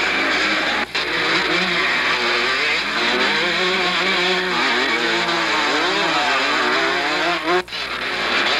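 Motocross motorcycle engines revving up and down as bikes race past, recorded on a Super 8 sound movie camera. The sound briefly drops out about a second in and again near the end.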